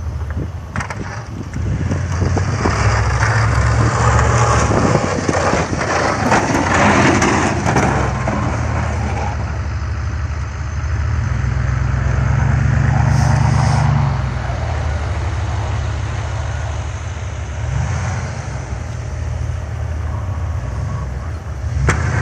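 Pickup truck engine running under load as the truck plows snow with its front blade, with the rush and scrape of the blade pushing snow across the pavement. The engine note swells about halfway through.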